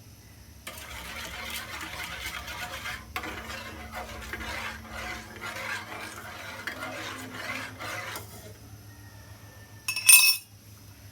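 A spoon stirring quickly around a pan, dissolving powdered milk into the milk tea: a dense run of rapid scraping clinks that stops about eight seconds in. Near the end comes one loud, sharp clink.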